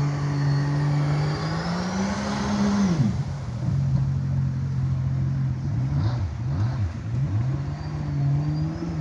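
Boat engine running under way, its pitch rising about a second and a half in and dropping sharply near three seconds, then holding steady with a brief wavering in the middle and a slight rise near the end.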